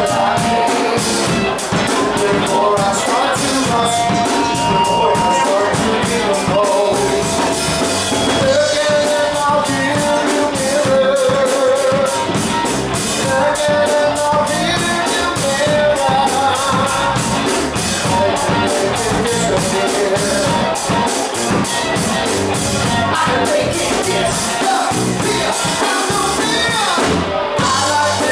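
Rock band playing with a steady drum-kit beat under a sung lead vocal.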